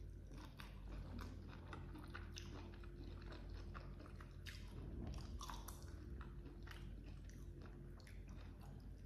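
A person chewing and crunching a mouthful of grilled rice with baby squid, with many small crunches and wet clicks in quick, irregular succession.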